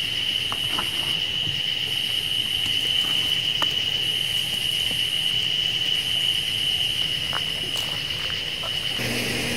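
A steady, high-pitched trill of crickets at night, with a fainter, higher insect song starting and stopping in phrases of about a second. A few light clicks of packaging being handled.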